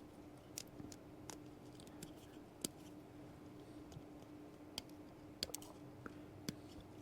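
Faint, scattered small clicks and taps from a circuit board and small tools being handled, about a dozen in all, over a steady low hum.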